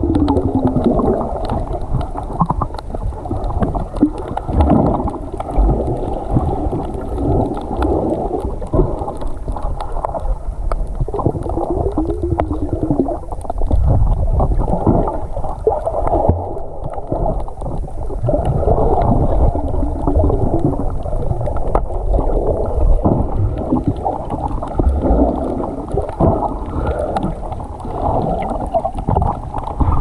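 Muffled underwater water noise from a camera held beneath the sea surface: continuous low sloshing and gurgling of moving water that swells and falls irregularly.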